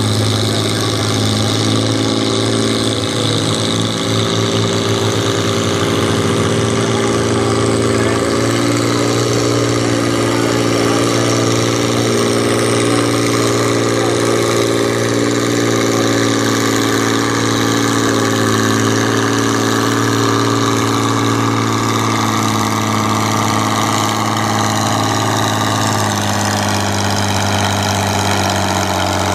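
Farm tractor engine running at a steady speed, its pitch holding level throughout.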